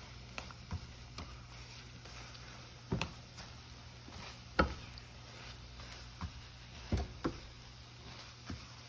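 Metal spatula knocking and scraping against a frying pan while flipping scrambled eggs: irregular taps and clicks, about ten of them, the loudest about halfway through, over a faint steady low hum.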